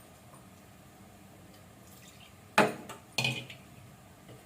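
Two sharp clanks of a kitchen utensil against a metal cooking pot, about half a second apart, a little under three seconds in, the first louder; otherwise a quiet kitchen.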